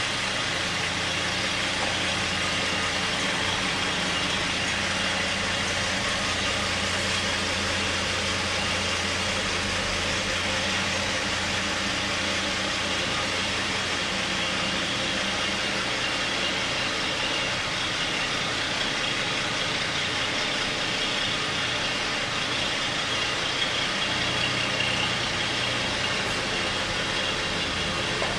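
Steady mechanical drone with a constant hiss, unchanging apart from the low hum weakening for a while and then returning.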